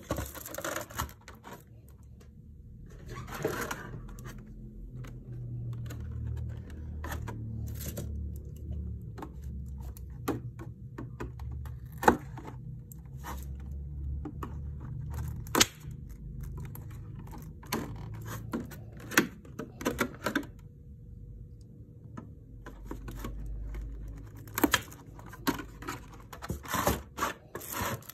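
Clear plastic blister packaging being handled and cut open: irregular crackles, sharp clicks and scrapes of stiff plastic, with a small knife slicing through the tape that holds it.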